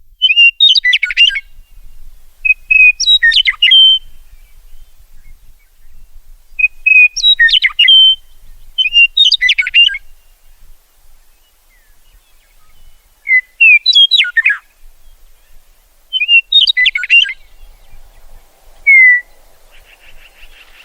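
Meadowlark singing: six short song phrases of quick whistled notes sliding up and down, a second or more apart, then one short falling note near the end.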